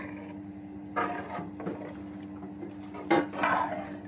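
Metal spoon stirring milk, grated carrots and rice in a steel pot, scraping and sloshing twice, about a second in and again near three seconds, over a steady low hum.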